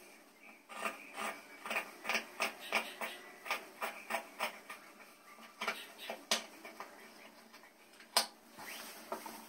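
Denim fabric being handled and slid across a sewing-machine table, with irregular rustles and light taps. A single sharp scissors snip comes about eight seconds in.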